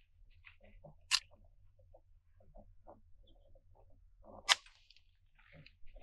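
Two shots from a CZ 515 .22 Magnum rimfire rifle, about three and a half seconds apart, each a sharp crack. Between them come small faint clicks and knocks as the lever-release action is cycled.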